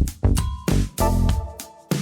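Background music with a punchy, steady beat and bass.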